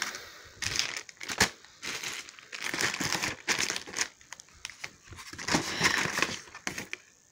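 Clear plastic bags and packaging crinkling and rustling as a hand rummages through a cardboard box of computer parts, in irregular bursts with a few sharp clicks.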